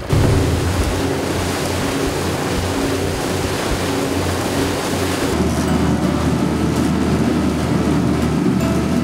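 Motorboat under way: a steady engine drone under the rushing wash of its wake and the wind. The low part of the drone shifts a little about five seconds in.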